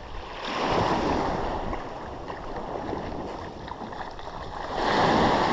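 Surf washing on the beach, swelling about a second in and again near the end.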